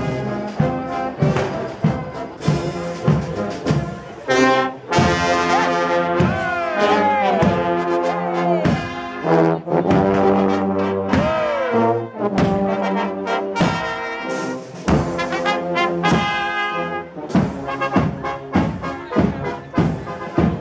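A brass band playing a marching tune over a steady beat of about two strikes a second, with several notes bending in pitch.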